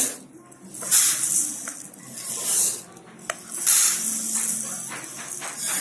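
Dry split lentils poured from a small bowl into a larger ceramic bowl: three rushing, hissing pours of the grains, each under a second long.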